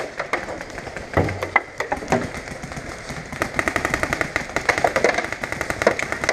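Paintball markers firing: scattered shots at first, then a fast, steady run of pops from about three seconds in.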